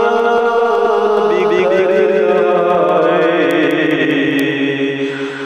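A voice chanting an Urdu nazm in a melody of long, wavering, drawn-out notes.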